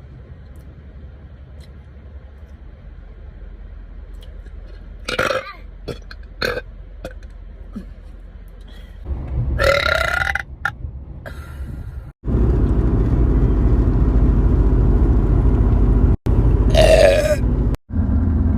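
Young women burping: loud, drawn-out burps at about five seconds in, around nine to ten seconds in, and again near seventeen seconds in. From about twelve seconds in a steady low rumble runs underneath.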